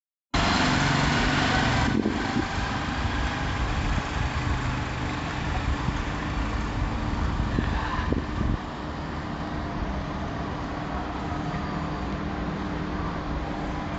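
Electric tubular motor of an outdoor roller blind humming steadily as it lowers the blind. Under it is louder rushing background noise that eases off about eight seconds in.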